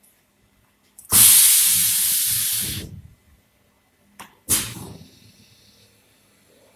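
Spray gun on an automatic furniture spray-painting machine firing: a loud hiss of compressed air atomising the finish coat, lasting almost two seconds from about a second in, then a second, shorter burst about four and a half seconds in that fades out.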